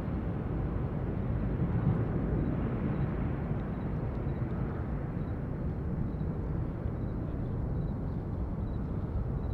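Jet engines of a Boeing 777 taxiing at a distance: a steady low rumble.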